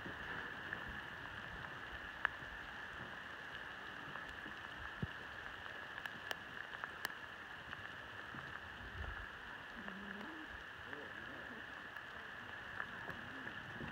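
A mob of sheep walking over dirt, their hooves making a steady pattering shuffle under a constant high hiss. A faint wavering call, likely a bleat, comes about ten seconds in.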